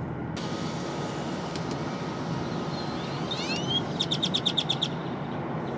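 Steady outdoor rumble and hiss. About three seconds in a bird sings: a few rising chirps, then a quick run of about eight sharp, high notes.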